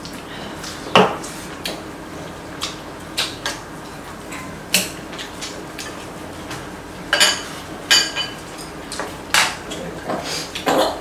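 Chopsticks and tableware clinking and knocking against bowls and the stew pot during a meal: scattered short, sharp clicks about once a second, some in quick pairs and clusters.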